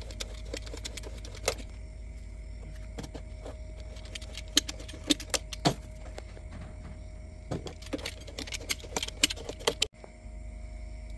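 Irregular metallic clinks and clicks over a steady low hum, the clinks coming in clusters, with a brief dropout near the end.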